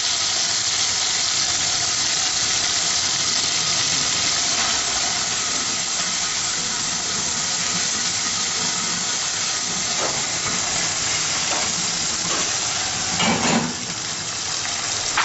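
Chopped onion sizzling in hot oil with ginger-garlic paste in an aluminium karahi: a steady frying hiss. A spatula stirs it now and then, with a few light knocks near the end.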